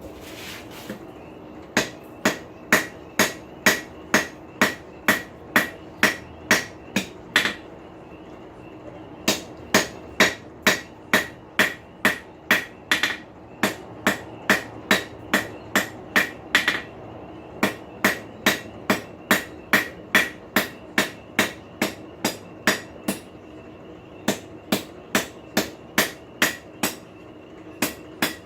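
Blacksmith's hammer striking hot steel on an anvil in runs of about two blows a second with short pauses between runs, each blow ringing briefly. This is the tip of the rasp's tongue being drawn out, taking the file taper out of it.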